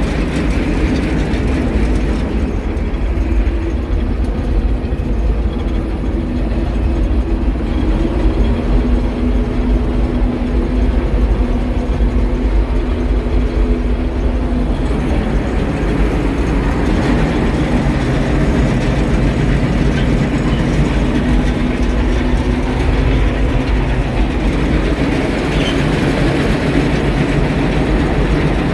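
White 8900 combine's diesel engine running steadily while the combine is driven, its pitch shifting slightly now and then.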